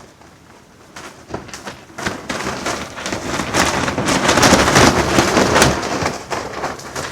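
Strong wind gusting and buffeting the microphone, with the crackling snaps of satin clothing flapping. Quiet at first, it builds after about two seconds to a strong gust and eases near the end.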